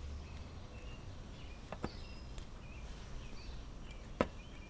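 Faint, sparse clicks of a thin steel wire being worked into the passages of a 287cc Subaru/Robin small-engine carburetor to clear old-gasoline clogs, with one sharper tick about four seconds in, over a low steady hum.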